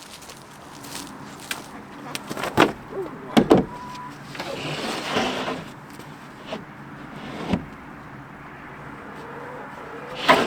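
Clunks and knocks of things being handled, with a scraping, sliding sound about halfway through.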